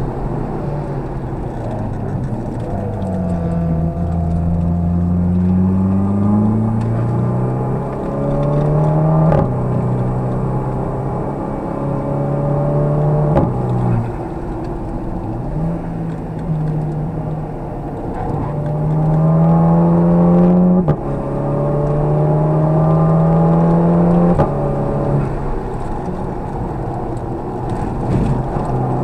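Car engine heard from inside the cabin, accelerating on a race track: the revs climb and drop back at each gear change several times, easing off for corners in between.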